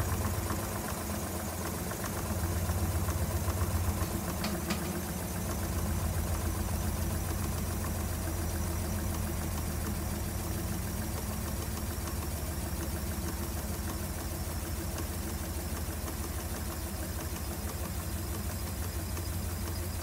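Whirlpool WTW5000DW1 top-load washer's drive running steadily, heard from beneath the tub: a low hum with a fast, even pulsing, and one faint tick about four and a half seconds in.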